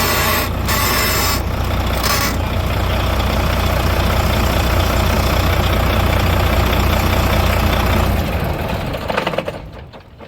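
Heavy truck's diesel engine running steadily with a deep hum and a hiss, cutting off about eight seconds in, followed by a few light knocks.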